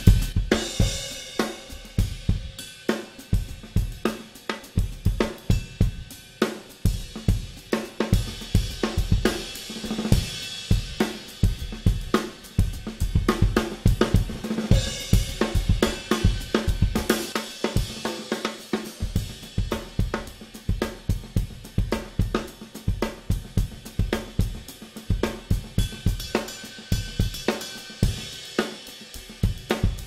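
Drum kit played with sticks in a steady groove. The Basileia Heritage 20-inch ride cymbal gives a bright, sustained wash over the snare, kick drum and hi-hat strokes.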